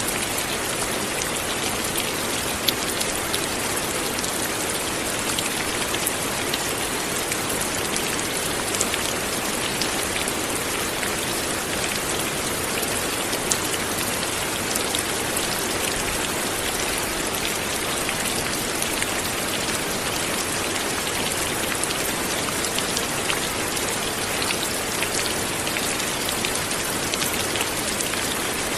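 Steady light rain falling, an even hiss with many small scattered drop ticks.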